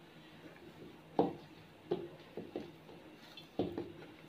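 Hands kneading soft dough in a glass bowl: about six short, dull knocks at uneven intervals as the dough is pressed and the bowl shifts, the loudest about a second in.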